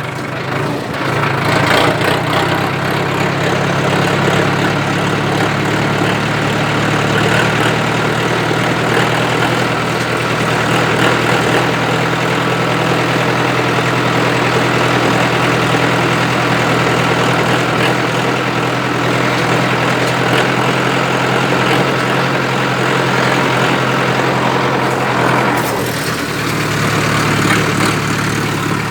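Sonalika DI 750 tractor's diesel engine running steadily through a newly fitted exhaust silencer, a loud, even exhaust note; near the end it dips briefly and settles on a slightly different note.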